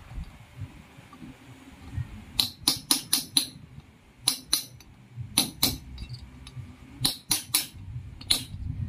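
T-handle socket wrench worked on the cam-holder bolts of a motorcycle cylinder head, making sharp metallic clicks in quick clusters of two to six, starting about two seconds in, as the bolts are snugged down.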